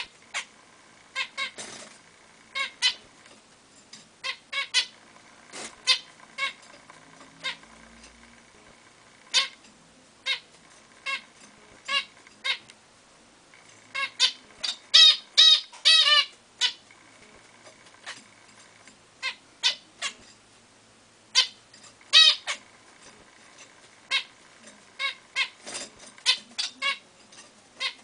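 Zebra finches calling: short, squeaky calls at irregular intervals, with a quick run of calls about fourteen to sixteen seconds in and another cluster a little after twenty-one seconds.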